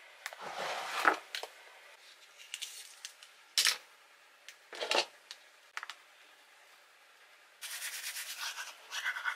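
Toiletries handled at a bathroom sink, with rustling and a few sharp clicks and knocks. Then, about three-quarters of the way in, a manual toothbrush starts scrubbing teeth in quick, even strokes.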